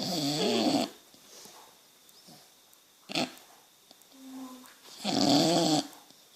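Boxer dog snoring in her sleep: two loud snores with a wavering pitch, about five seconds apart, and a short click between them. The owner wonders whether the snoring is a sign of sleep apnea.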